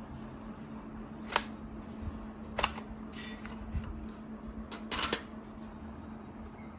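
A handful of sharp clicks and taps from laptop parts and tools being handled during disassembly, one of them a short scrape, over a steady low hum.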